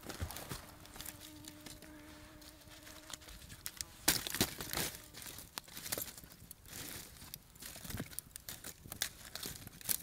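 Footsteps on forest leaf litter and a steady low buzz lasting about three seconds. Then sharp crackles and snaps of dry wood being handled and laid on a campfire, loudest about four seconds in.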